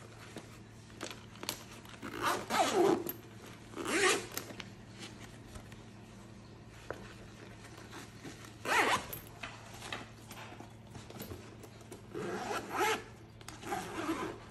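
Zippers on a ballistic-nylon Tumi Alpha 3 organizer tote being pulled along in about five short strokes, some quick and some drawn out over about a second.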